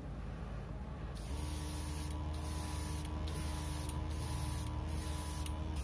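Airbrush spraying lacquer paint: a hiss of air that starts about a second in and comes in several spurts with short breaks, over a steady low hum.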